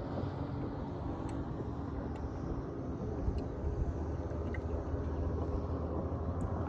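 Boat motor running with a steady low rumble.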